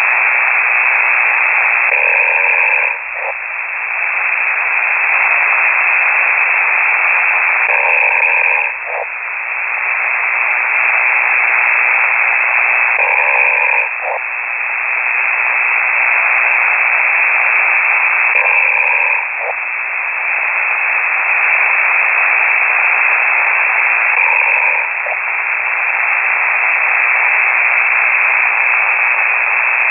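Amateur radio signal heard through a shortwave receiver: steady loud hiss with a person's snoring carried on the transmission. There are five snores, one about every five and a half seconds, each a short pitched rasp followed by a brief drop in the hiss.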